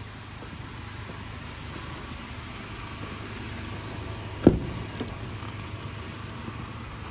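Van's front cab door handle pulled and the latch clicking open about four and a half seconds in, with a fainter click just after, over a steady low hum.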